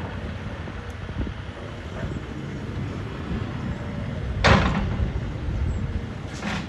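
Demolition machinery running with a low, steady rumble, and one loud, sudden burst of noise about four and a half seconds in.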